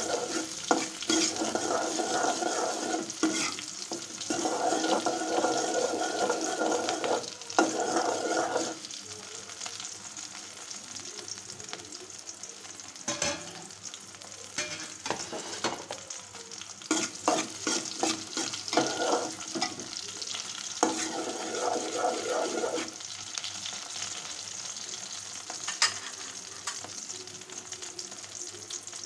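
Shrimp frying in hot oil in an aluminium pot: a steady sizzle with scattered pops. For the first eight seconds or so, and again for a few seconds past the middle, a steel spoon stirs and scrapes against the pot with a ringing metallic sound.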